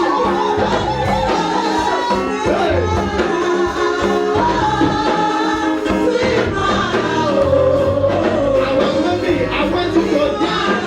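Gospel music: singing over a band, with steady bass notes and a regular percussion beat.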